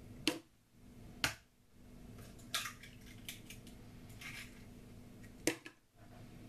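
Eggs being cracked on the rim of a glass mixing bowl: three sharp taps of shell on glass, about a second apart at first and again near the end, with softer crackling and rustling as the shells are pulled apart and emptied in.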